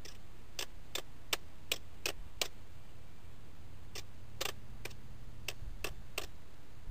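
Sharp, light clicks in two runs of about six, roughly three a second, with a pause of about a second and a half between the runs, over a low steady hum.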